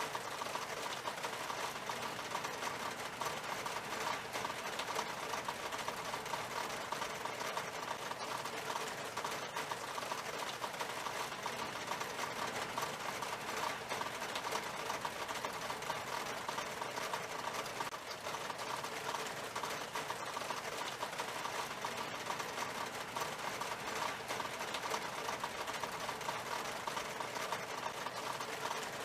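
Steady rain falling on window glass: a constant dense hiss made up of countless small drop ticks, unchanging throughout.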